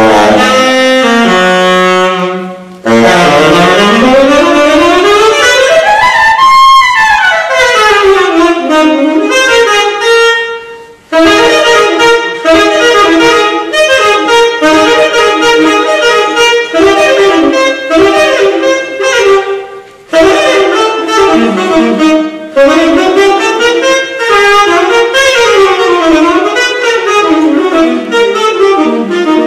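Unaccompanied tenor saxophone improvising jazz. It opens on a held low note, then a fast run sweeps up high and back down, followed by long strings of rapid notes with a few short pauses.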